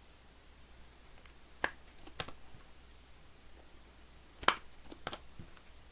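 A few scattered light clicks and taps from trading cards being handled and stacked, the sharpest a little past the middle.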